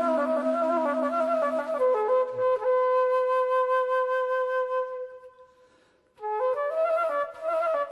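Flute playing an ornamented melody of traditional music, with a lower held line underneath until about two and a half seconds in. The flute then holds one long note that fades out, and after a short gap the melody starts again about six seconds in.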